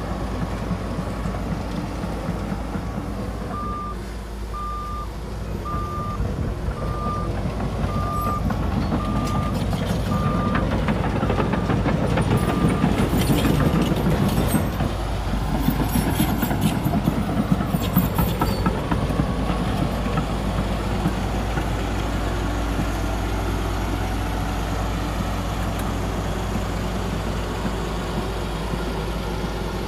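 Heavy diesel earthmoving machinery running steadily, with a reverse-warning beeper sounding about once a second from a few seconds in until about halfway. Metallic clanking and rattling builds up in the middle, the loudest part.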